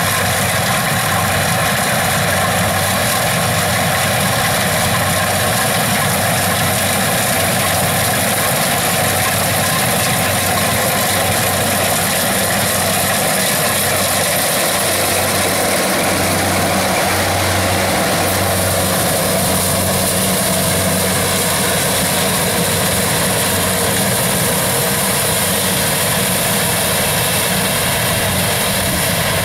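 Compact rice combine harvester running steadily as it cuts and threshes standing rice: a constant engine and machinery drone.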